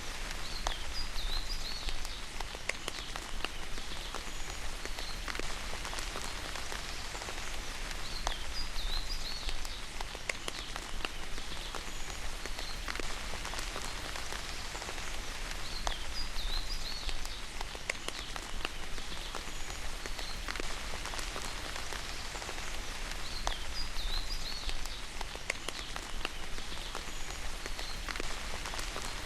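Steady rain falling, with many individual drops ticking on a surface. A short high chirping call cuts through it about every seven to eight seconds, in the manner of a looped track.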